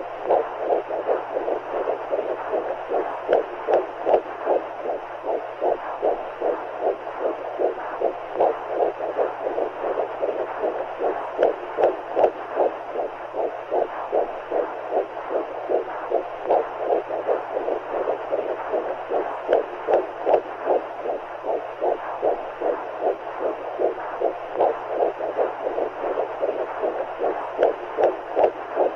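Recorded womb sound for calming a baby: rhythmic whooshing heartbeat pulses, about two to three a second, over steady rushing noise and a low hum, said to mix heartbeats with the sound of amniotic fluid.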